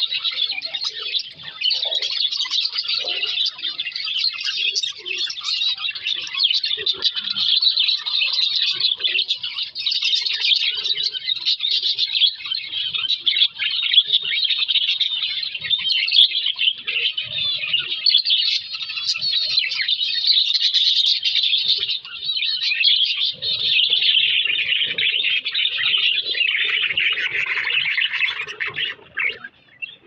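A flock of budgerigars chattering and chirping, many birds warbling at once in a dense, unbroken high chatter.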